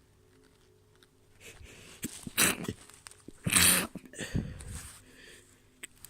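A person's wet stifled sneezes: breathing builds from about a second and a half in, then two short, muffled bursts about a second apart, followed by smaller breathy sounds.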